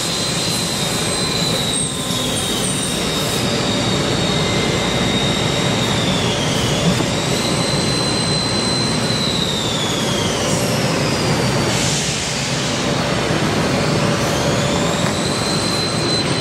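Haas CNC machine running a cut with coolant flooding the work: a steady wash of coolant spray and machine noise, with a high motor whine that twice drops in pitch and climbs back. A short surge of louder noise comes about twelve seconds in.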